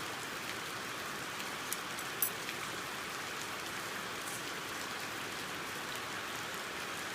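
Steady even hiss of background noise, with a few faint light clicks about two seconds in and again about four seconds in.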